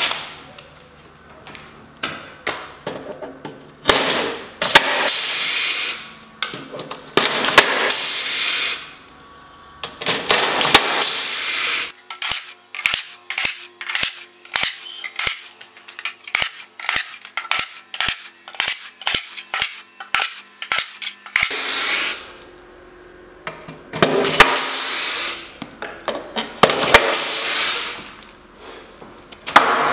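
Air-powered pop rivet gun setting rivets through aluminium chequer plate: sharp snaps as each rivet's mandrel breaks, between bursts of air hiss from the tool. In the middle comes a long run of quick snaps, about two a second.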